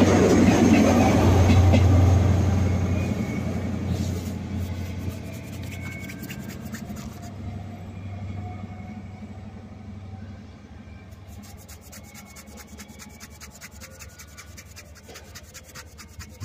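InterCity 125 (Class 43 HST) diesel train accelerating away: its coaches rumble past with the low hum of the diesel power car, which fades steadily as the train pulls off into the distance. In the last few seconds rapid scratchy crackling comes in over the fading hum.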